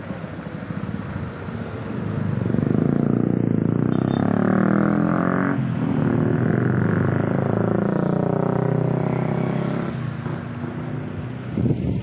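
A motor vehicle's engine passing close by: it grows louder about two seconds in, stays loud through the middle and fades away near the end.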